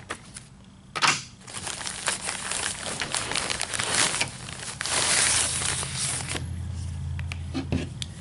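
Crinkling, rustling handling noise as papers and the nylon lining of a soft rifle case are handled. It starts sharply about a second in, runs as dense crackly rustle with small clicks, and eases off near the end.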